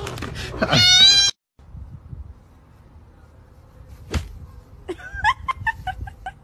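Cat meowing: a high, wavering meow near the start, then after a quiet gap and a single sharp click, a quick run of short chirping mews.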